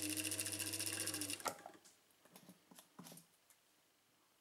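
Seamstress 433/434 zig-zag sewing machine running with its bobbin winder engaged against the hand wheel, winding thread onto a bobbin: a steady motor hum with fast, even ticking. It stops suddenly about a second and a half in, followed by a few light clicks.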